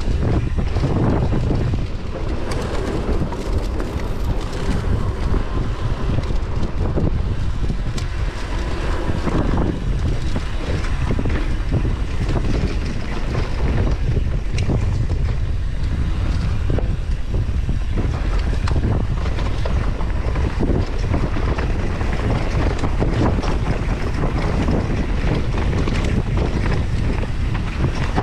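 Wind buffeting the microphone of a camera on a mountain bike riding a rough trail, with constant rattling and small knocks as the bike runs over the ground.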